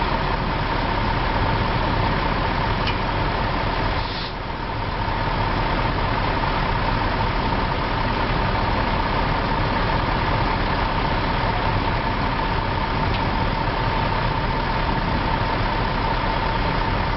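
Diesel engine of a Terex concrete mixer truck idling steadily, with a constant whine over it. The sound dips briefly about four seconds in.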